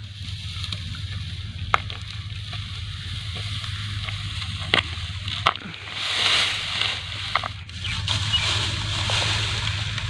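Dry cut wheat stalks rustling and crackling as armfuls are gathered up and carried, with a few sharp clicks of straw, loudest about six seconds in and again near the end. A low steady hum runs underneath.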